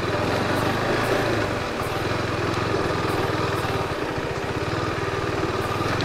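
KTM RC 390's single-cylinder engine running at low, steady revs, with an even, rapid pulse.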